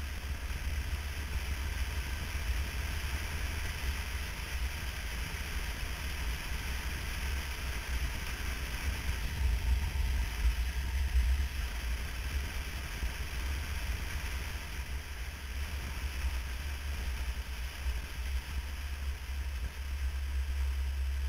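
Motorcycle riding at road speed, heard as steady wind rush and low buffeting on the camera microphone with the engine running underneath.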